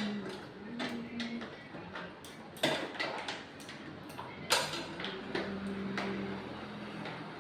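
Irregular metallic clicks and two sharper knocks from bicycle parts and tools being handled during a repair, over a faint low hum.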